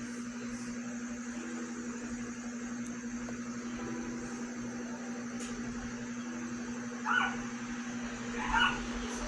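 Steady background hum, with two short dog barks about seven and eight and a half seconds in.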